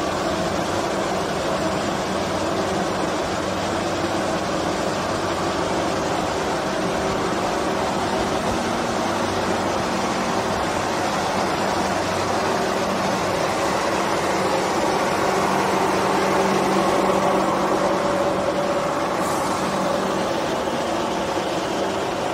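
Machinery of a stainless steel wire annealing line running: a steady mechanical din from the wire take-up and winding machines, with a few held hum tones over a broad noise. It swells slightly a little past the middle.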